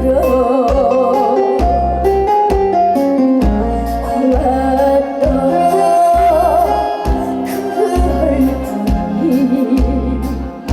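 Live Korean trot song: a female voice singing over a backing track with a steady, evenly spaced bass beat.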